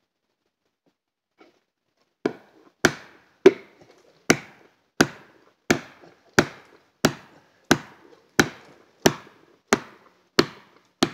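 Repeated blows driving a plastic felling wedge into the cut of a back-leaning Eastern White Cedar stem: about fourteen sharp, evenly spaced strikes, roughly one and a half a second, starting about two seconds in. The wedging is forcing the stem over against its back lean.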